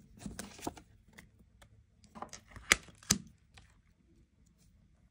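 Tarot cards being handled and laid down on a table: a scatter of light clicks and taps, with two sharper clicks about three seconds in.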